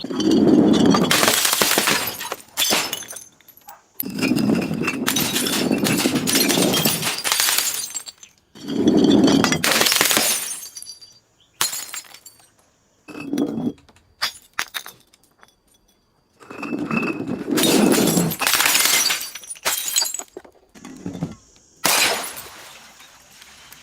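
Glass bottles being crushed and shattering: a series of crunching, breaking bursts, each lasting one to three seconds, with short pauses between them.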